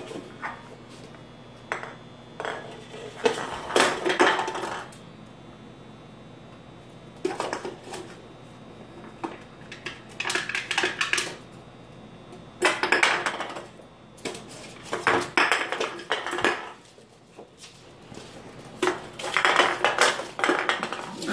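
Empty aluminium beer can being pushed and batted across a hardwood floor by a small dog, clattering and scraping in about six short bursts with quiet spells between.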